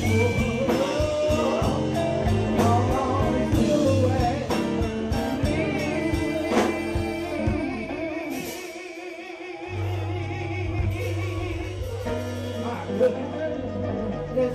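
Man singing live into a microphone, backed by a band with keyboard and drums. The low bass drops out for about a second and a half around the middle, then comes back in.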